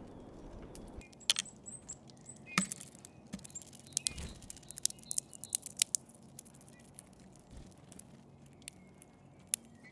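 Eurasian bullfinches at a feeder cracking sunflower seeds and pecking and hopping about: rapid, irregular sharp clicks and taps of beaks on seed husks and the feeder.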